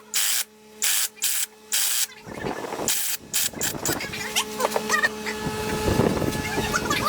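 Short hissing bursts of spray, about two a second, for the first two seconds and once more near three seconds. After that comes irregular rubbing and scraping over a steady low hum.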